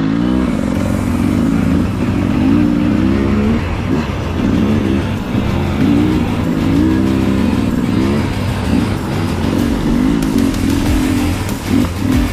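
Single-cylinder dirt bike engines revving while ridden, the pitch repeatedly rising and dropping as the throttle is worked through the gears.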